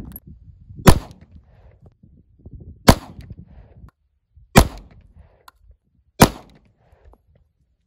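Four pistol shots from a Smith & Wesson M&P Shield subcompact handgun, fired one at a time about two seconds apart.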